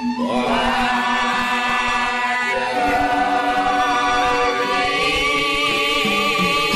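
Balinese ceremonial chanting: voices held in long, wavering tones over a steady low held note, the pitch sliding up at the start.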